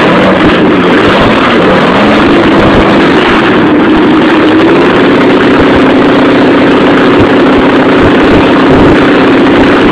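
NASCAR stock car's V8 engine running loud, its speed rising about two to three seconds in and then held steady at a higher, even pitch.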